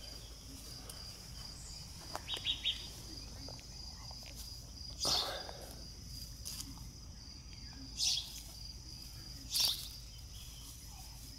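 Steady high insect trilling in the background of an outdoor morning, with a few short chirps over it: a quick triple chirp about two seconds in, then single louder chirps about five, eight and nine and a half seconds in.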